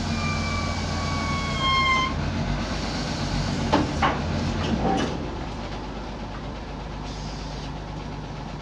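Diesel engine of a crawler crane running steadily, with a high squeal falling slightly in pitch for the first two seconds and a couple of sharp clanks about four seconds in. The engine sound eases off a little after about five seconds.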